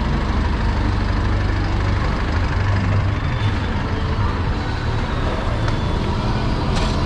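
Street traffic with a motor vehicle's engine running close by, a steady low rumble, and a short click near the end.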